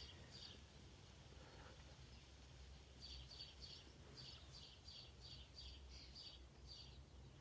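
Near silence with faint, rhythmic high chirping, about three chirps a second from about three seconds in, over a low steady hum.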